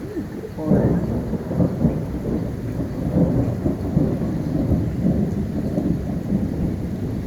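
A thunderclap breaks about a second in and rolls on as a long, crackling rumble, with rain falling.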